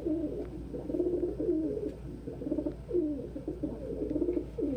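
Ringneck doves cooing, one rolling coo running into the next with no break.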